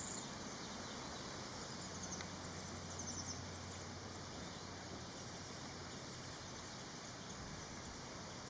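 Steady outdoor background hiss with a few faint, very high, thin calls of cedar waxwings in the first few seconds.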